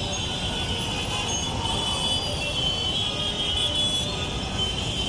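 Dense city traffic: motorcycles, auto-rickshaws and cars running in a jam, with horns honking.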